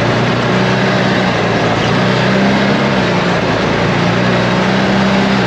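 ATV engine running steadily while being ridden. Its hum shifts slightly in pitch a few times, under a loud, even rushing noise.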